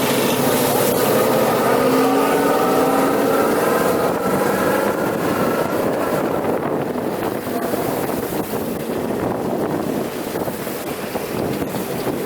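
GAZ-66 truck's V8 petrol engine running under load, a whining drone that rises slightly in pitch over the first half. After that it gives way to a rough rushing noise with wind on the microphone.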